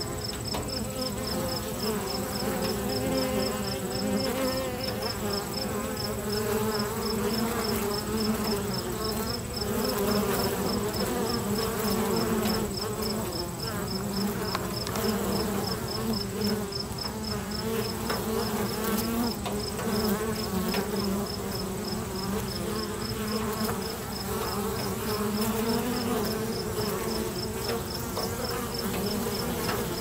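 Honey bees buzzing at a hive entrance: a steady, many-bee hum that wavers slightly as individual bees fly past the microphone.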